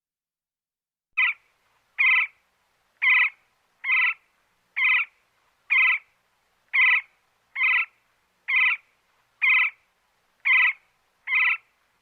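An animal's short call repeated at an even pace, twelve times at about one call a second, starting about a second in.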